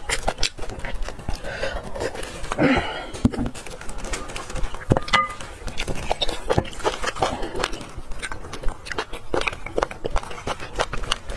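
Close-miked eating sounds: sucking and slurping soft bone marrow, with chewing and many short sharp clicks and smacks scattered throughout.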